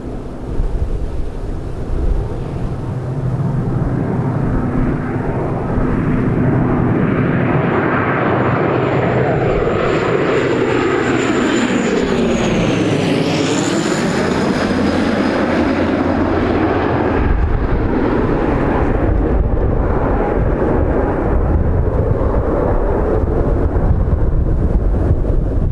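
De Havilland Canada Dash 8-400's twin Pratt & Whitney PW150A turboprops and six-bladed propellers droning as it comes in low to land and passes by. The drone grows louder over the first few seconds, and a high whine falls in pitch as the aircraft goes past about 13 seconds in. Gusty wind rumbles on the microphone, heaviest in the second half.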